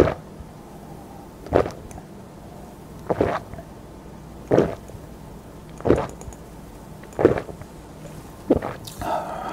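A person gulping down a dark drink from a glass mug in one go: seven loud swallows, about one every 1.4 seconds. It ends with a voiced 'ahh' breath out near the end.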